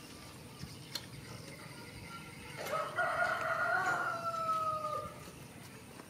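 A rooster crowing once: a single long call of about two and a half seconds, starting about halfway through and sagging slightly in pitch near its end.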